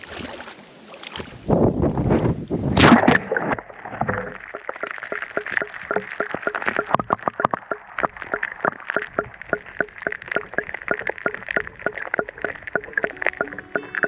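Water splashing around a GoPro as it goes under in a shallow river, then a rapid, steady crackling and gurgling: water getting into the GoPro's Media Mod microphone, which isn't waterproof.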